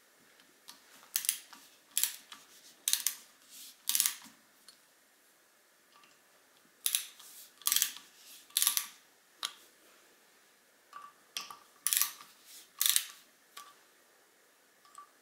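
Sharp metal clicks and scrapes as a screwdriver drives small steel screws into a scope mount base, in short clusters separated by quiet pauses.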